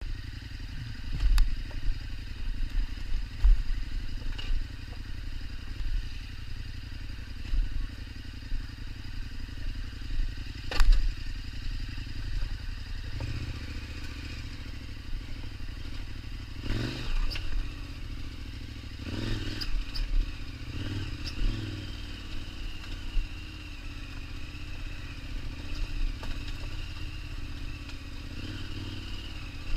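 KTM 1290 Super Adventure's V-twin engine running at low revs, with scattered knocks and clatter, the loudest about a second in and around eleven seconds in. The revs rise briefly twice in the second half, then settle into a steadier note.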